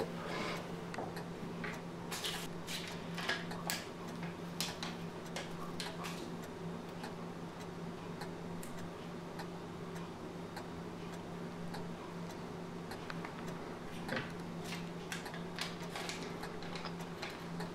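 Irregular light clicks and taps of small hand tools and metal hardware being worked at a wooden instrument neck, over a steady low hum.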